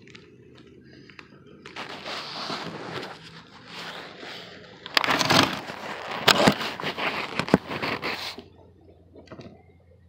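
Close scraping and crunching with sharp crackles, loudest in the second half and stopping suddenly near the end.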